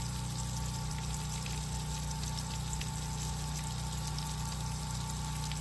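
Steady rush and splatter of a hose's water jet landing on a mud wallow and wet grass, over a steady low hum.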